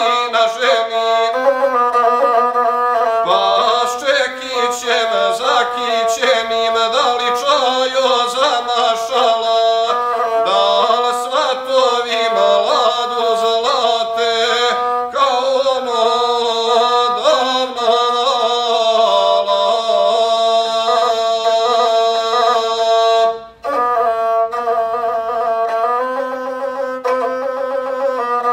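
Gusle, the Balkan bowed folk fiddle made of maple, skin and horsehair, played in a wavering, heavily ornamented melody, with a man singing an epic verse along with it in places. The playing breaks off for an instant a little before the end, then carries on.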